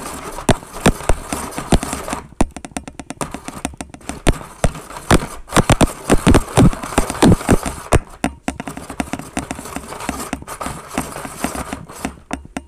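Toy hand-cranked snow cone maker shaving ice: a dense run of irregular crunching clicks and knocks as the crank is turned, busiest in the middle.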